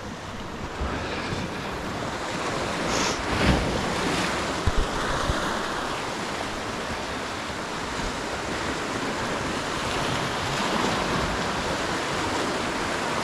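Ocean surf washing steadily onto the shore, swelling louder about three seconds in, with wind buffeting the microphone. A few short knocks sound about five seconds in.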